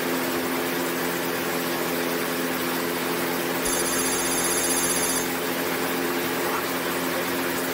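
Kallithea gyroplane's engine and rotor droning steadily with rushing wind, heard from the cockpit on final approach. For about a second and a half in the middle, a rapid high electronic beeping joins in.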